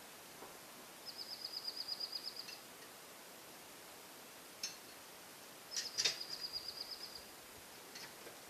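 A small songbird singing a fast, high trill of about ten notes a second, twice, each trill lasting about a second and a half. A sharp click comes just as the second trill begins, with a couple of fainter clicks in between.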